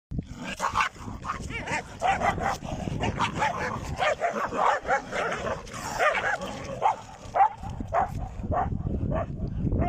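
Dog barking rapidly and repeatedly, sharp barks several a second, at a baboon.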